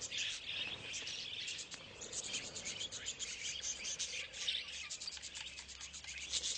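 A flock of budgerigars chattering: a dense, continuous run of rapid high chirps and warbles.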